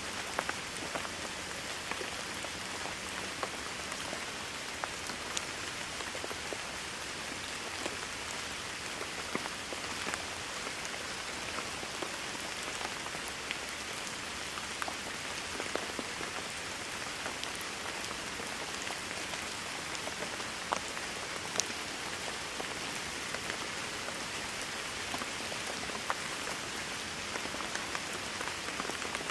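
Steady rain falling on a hard surface, an even hiss broken by many small, distinct drop ticks.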